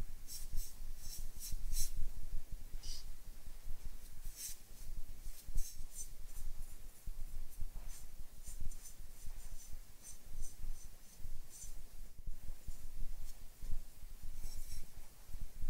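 Brush bristles stroking and dabbing liquid glaze onto a bisque-fired clay cup, in a run of short, irregular strokes.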